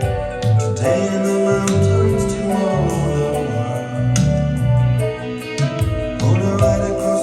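Music with a steady beat, bass line and guitar, played through a pair of bookshelf loudspeakers with 6.5-inch drivers and recorded on a phone.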